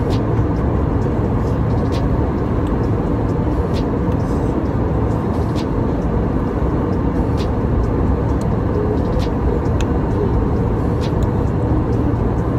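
Steady airliner cabin noise, a low drone of engines and rushing air. Faint short ticks come about every two seconds.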